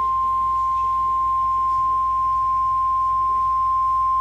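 Emergency Alert System warning alarm tone: a single steady, loud tone at about 1050 Hz, the weather-radio attention signal that announces a severe thunderstorm warning is about to be read.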